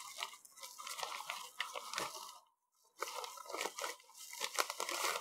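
A plastic vacuum-sealer bag crinkling and rustling in the hands as wrapped pieces of cured pork are packed into it, with a brief silent break a little past halfway.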